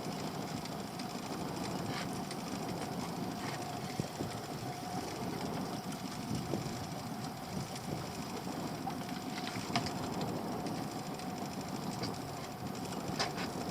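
Small boat's engine idling steadily, a low rumble with one constant tone through it and a few faint clicks.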